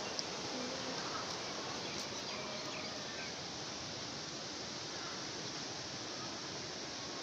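Steady hiss of light rain, with a few faint bird chirps.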